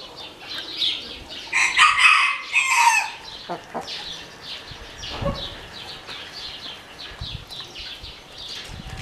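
Black Orpington rooster crowing once, a call of about a second and a half beginning about a second and a half in, over a steady run of short high chirps.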